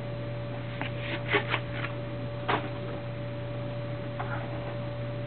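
A handful of light clicks and rustles from a knife and leather sheath being handled, over a steady electrical hum.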